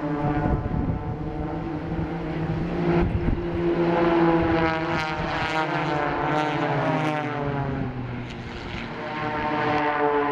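A formation of single-engine propeller aerobatic planes flying past, their engines droning. From about three seconds in, the engine pitches sweep and cross each other as the aircraft pass.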